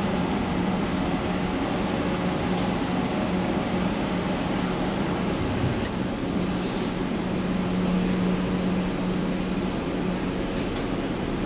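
Steady hum inside a metro car: an even rushing noise with a constant low tone, a few faint clicks and knocks.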